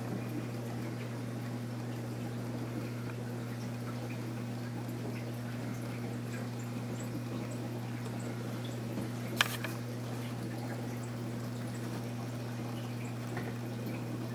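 Aquarium water circulation: a steady electric pump hum with water trickling and dripping, and one sharp click about nine seconds in.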